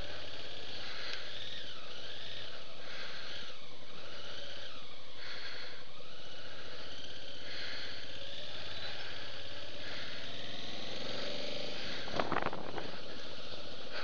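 Motorcycle engine running steadily at low street speed, heard from a camera mounted on the bike, with a short louder noise about twelve seconds in.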